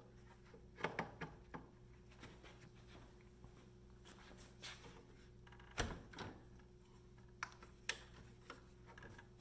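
Scattered light knocks and taps of an aluminium track-saw guide rail being set and shifted on a board, with one heavier thump about six seconds in. A faint steady hum runs underneath.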